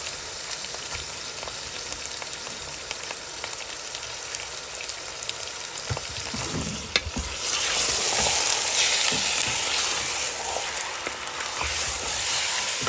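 Raw chicken pieces sizzling in hot oil and garlic-ginger paste in a metal pot over a high flame. The sizzling grows louder about halfway through, as the pieces are stirred with a wooden spoon, and there is a single sharp knock just before.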